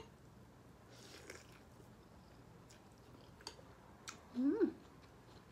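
A person chewing and eating food close to the microphone, with a few faint mouth clicks. A short hummed "mm" comes about four and a half seconds in.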